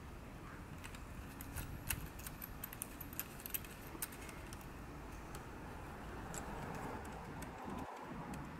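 Faint, scattered light clicks and clinks of small metal parts as a small nut is fitted by hand onto a bolt through Brompton rear mudguard stays and their anchor plate; the clicks come mostly in the first half.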